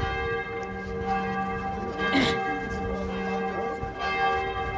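Church bells ringing, several tones held and overlapping. A short sharp sound comes about two seconds in.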